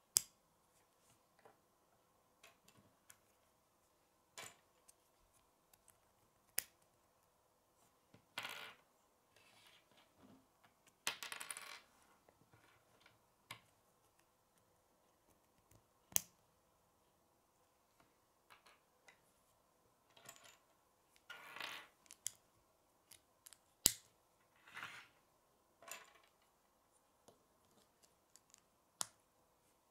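Small hard plastic K'nex pieces clicking and clattering as they are handled and snapped together. There are single sharp clicks every few seconds, and a few short rattling spells where pieces knock against each other.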